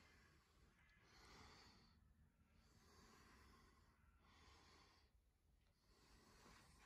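Near silence, with faint, slow breathing close to the microphone: soft hissing breaths coming and going evenly, about one every second and a half.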